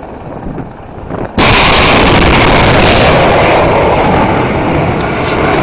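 Rockets being fired: a sudden, very loud roar starts about a second and a half in and carries on, its high hiss easing a couple of seconds later.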